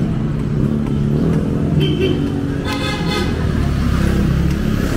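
A motor vehicle's engine running close by, with a brief horn toot about three seconds in.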